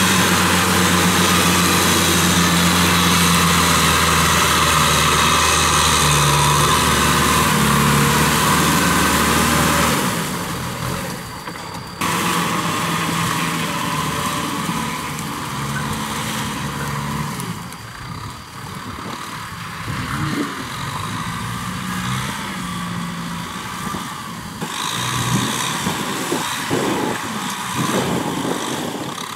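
Kubota M6040SU tractor's four-cylinder diesel engine running while it drives a rear-mounted rotary tiller through wet, muddy soil. It is loud and steady for the first ten seconds, then quieter, with the engine note rising and falling.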